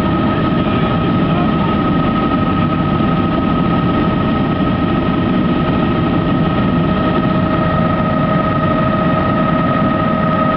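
Helicopter in flight heard on board: a loud, steady drone of engine and rotors with a constant high whine on top.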